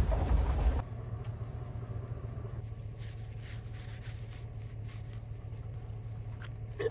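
A vehicle's driving rumble that cuts off under a second in, then a steady low hum with faint knocks and scrapes as plastic truck-bed cover panels are handled, and a short louder knock near the end.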